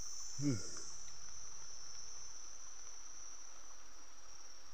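Steady, high-pitched chorus of forest insects, one continuous shrill drone. A short falling voice sound, a grunt, comes about half a second in.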